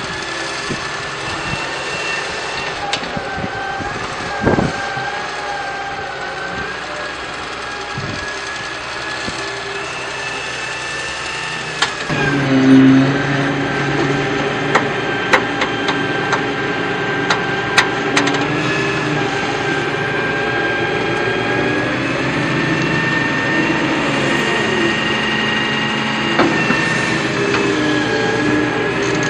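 Small electric motors and gearboxes of a radio-controlled toy excavator whining steadily, wavering slightly in pitch as it moves. About twelve seconds in, a louder, lower motor tone joins, followed by scattered sharp clicks and knocks.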